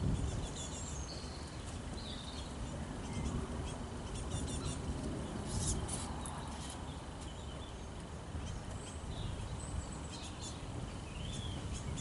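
Wild songbirds calling and singing: scattered short chirps and quick trills, over a steady low rumble.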